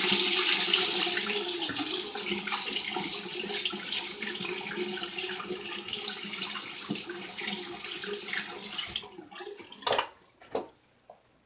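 Tap water running into a sink while lather is rinsed off, the flow gradually dying away, followed by a couple of short knocks near the end.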